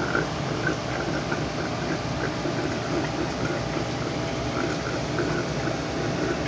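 Steady bubbling and trickling of aquarium water, with a busy run of small blips over an even background noise.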